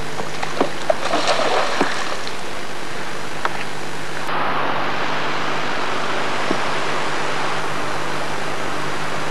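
A carp splashing and thrashing in shallow water as it is lowered back in by hand: a few sharp splashes and knocks, busiest about one to two seconds in. About four seconds in, this gives way abruptly to a steady hiss.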